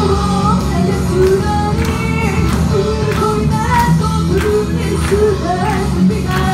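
A woman singing live into a microphone over loud music with a steady drum beat, heard through a club PA.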